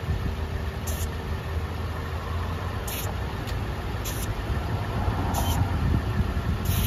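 ARB onboard 12-volt air compressor running steadily with a low hum as it pumps air into a tyre, with brief faint high hisses every second or so.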